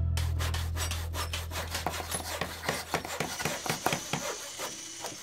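A run of quick, rough scratching strokes, about four a second, as the low end of a music track fades out over the first three seconds.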